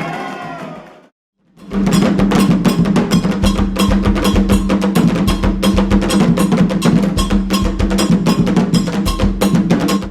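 Singing fades out; after a brief gap, percussion music starts: a fast, even pattern of sharp strikes over a held low note.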